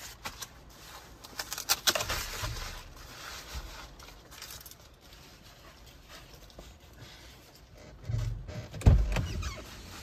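Rain falling, with irregular drops clattering close to the microphone, busiest about two seconds in, and a heavy low thump near the end.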